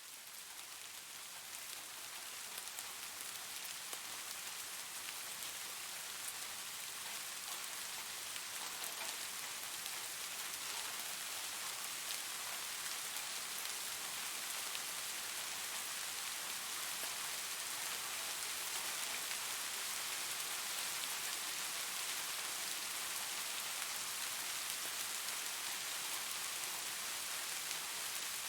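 Steady rainfall, an even dense hiss of drops that fades in over the first few seconds and then holds steady.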